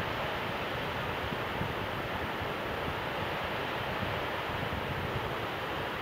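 Steady rushing wash of wind over shallow incoming tidewater on open sand flats, with low uneven rumbling from wind buffeting the microphone.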